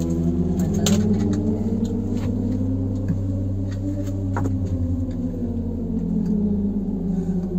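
Ambient drone music with deep, sustained tones and a slow gong-like swell, with a few faint clicks and knocks over it.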